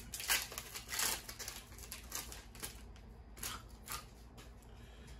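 Pokémon trading cards being flipped through by hand: short papery swishes and flicks of card against card, several in the first two seconds, then a few sparser ones.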